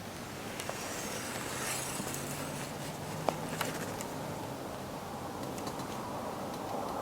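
Light rustling and a few small sharp clicks of a bowhunter's clothing and gear moving just before the shot, over a faint low steady hum.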